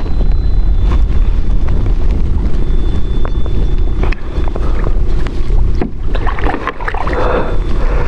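Wind buffeting the microphone, with water splashing and sloshing at the kayak's side as a small trout is held in the water by hand for release. The splashing gets busier about six to seven seconds in.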